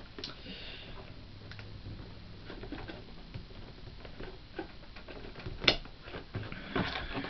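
Toy packaging being handled while scissors work at a zip tie: scattered light clicks and rustles of cardboard and plastic, with one sharp click about two-thirds of the way through.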